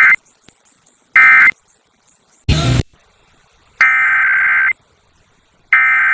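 Emergency Alert System SAME data bursts, a harsh two-tone digital screech. Two short end-of-message bursts about a second apart, a brief crackle about two and a half seconds in, then two longer header bursts, each about a second long, that open the next test.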